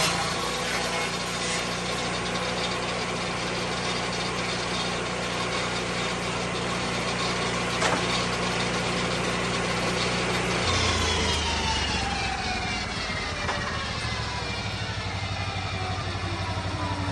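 Lucas Mill 10-30 swing-blade sawmill's engine running steadily with no cut under way, then throttled back about ten seconds in. A whine then falls slowly in pitch as the saw blade spins down, while the engine settles to idle.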